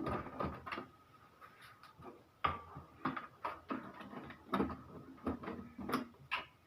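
Screwdriver taking screws out of an Epson L3210 printer's plastic housing: irregular light clicks and taps of the tool and plastic.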